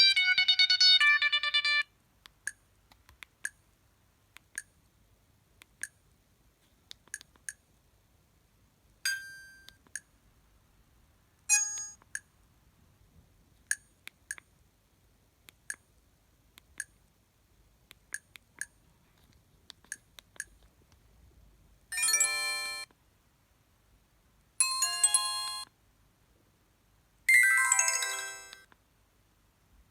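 Alcatel OT-660 flip phone's speaker playing its preloaded ringtones: a bright melodic ringtone that stops about two seconds in, then a long run of short faint blips at uneven spacing. Near the end come three brief chime-like tones about a second each, the last one sliding downward in pitch.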